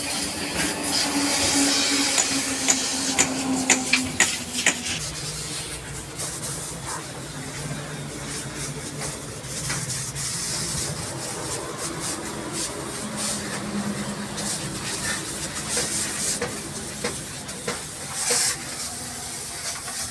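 Hissing water spray over a steady low motor hum, like a pressure washer running. A handful of sharp clicks comes about three to four seconds in.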